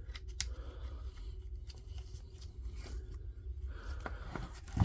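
Light handling of the Dewalt DCH253 rotary hammer's plastic housing parts during reassembly: faint scattered clicks and scrapes, with one sharper knock at the very end.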